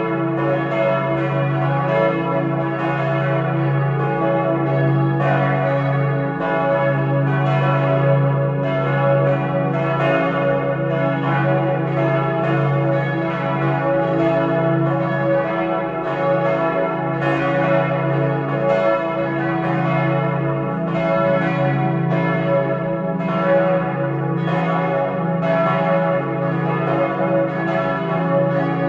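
Four church bells, tuned C♯, E, F♯ and G♯, swinging and ringing together in a continuous peal, strokes overlapping one another over the long ring of the bells. It is the ringing that calls to the church service.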